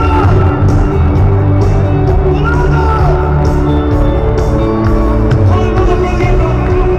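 Live worship band music played loud through a stadium PA: held chords over a heavy bass, with a voice singing long, sliding phrases and scattered shouts from the crowd.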